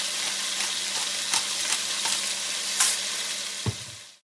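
Cubed beef sizzling as it browns in a stainless steel pot, a steady hiss with a few light clicks. There is a low thump near the end, and then the sound fades out.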